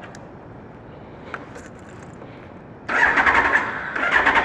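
Kawasaki ZX-12R's inline-four being started: about three seconds in, the electric starter cranks with a fast, even whirring, breaks off briefly, and cranks again near the end.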